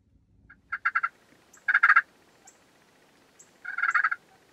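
Osceola wild turkey gobbler gobbling three times, each call a short rattling burst, the last starting a little over halfway through.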